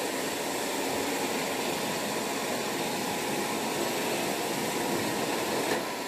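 Robot floor cleaner running steadily: an even whir of motor and brushes.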